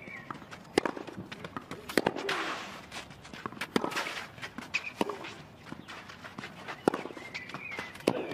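Tennis rally on a clay court: about five sharp racket strikes on the ball, one every one to two seconds, with players' shoes scuffing on the clay between them.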